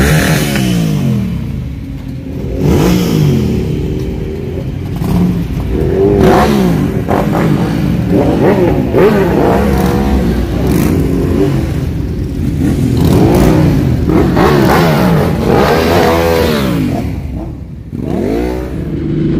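Several sport motorcycle engines revving and accelerating as a group of bikes pulls away, their pitches rising and falling again and again and overlapping one another.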